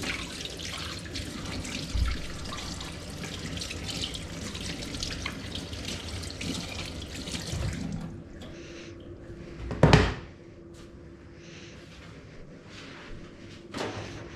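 Water running from a kitchen tap, which stops about eight seconds in; then a loud knock and, near the end, a softer one.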